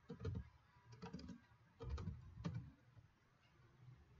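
Faint computer keyboard typing: a handful of key taps in small clusters, stopping about three seconds in.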